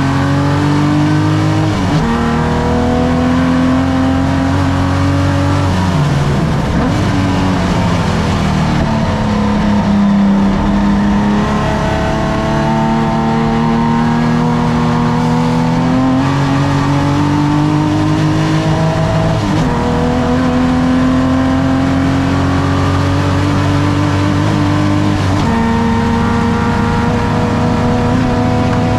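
A pre-1965 race car's engine at full throttle on track. The pitch climbs through each gear and drops sharply at each upshift. It falls away as the car brakes about six seconds in, then climbs again, with upshifts about sixteen, nineteen and twenty-five seconds in.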